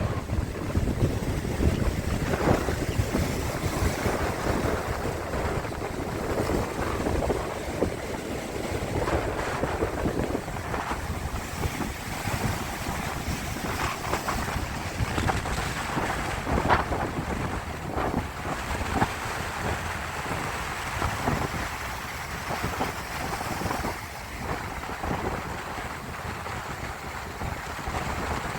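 Sea waves washing and splashing, with wind rumbling on the microphone.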